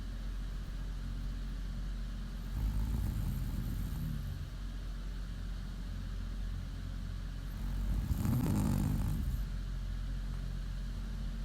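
Woman snoring in her sleep: two slow, low snores about five seconds apart, the second, about eight seconds in, the louder, over a steady low hum.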